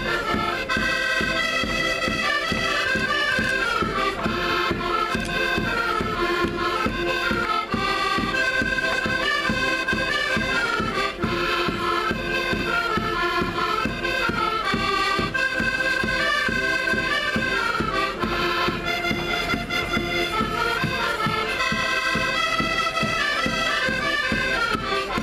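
Portuguese traditional street band playing a lively folk tune: an accordion-like reed melody over a steady, regular drumbeat.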